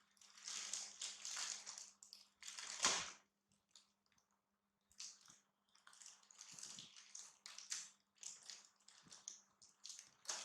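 Plastic snack bag crinkling and rustling as it is handled, in irregular bursts with one sharper crackle about three seconds in, over a faint steady hum.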